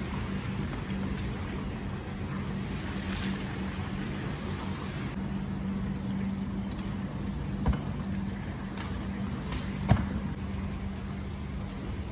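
Steady low mechanical hum with a constant low tone, broken by two sharp knocks, one past the middle and a louder one about two seconds later.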